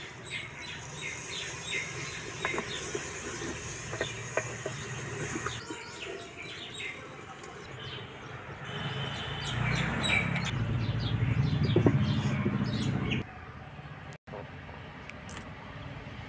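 Water poured from a jug into a hot clay pot of peas and potatoes, hissing for several seconds. A louder low rumble follows for about four seconds and cuts off abruptly. Small birds chirp throughout.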